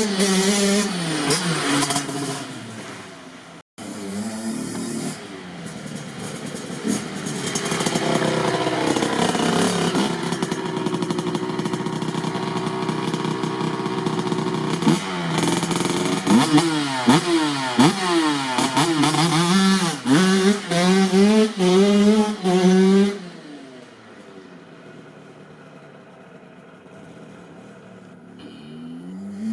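Kawasaki KX65 two-stroke dirt bike engine being ridden and revved, its pitch climbing and dropping again and again, with a long steady high-revving stretch midway. A quick series of revs follows, then the engine goes much quieter for the last several seconds before picking up again at the very end.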